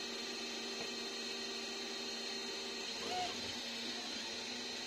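Ender 3D printer running mid-print: its cooling fans and stepper motors make a steady hum with several held tones, which shift as the print head changes moves. A brief short high sound comes about three seconds in.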